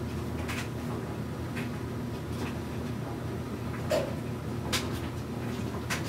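Scattered light knocks and rustles as a person shifts about inside the drum of a front-loading washing machine, over a steady low hum.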